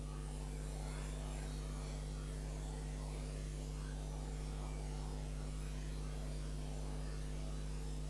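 Steady electrical mains hum with a low, even hiss.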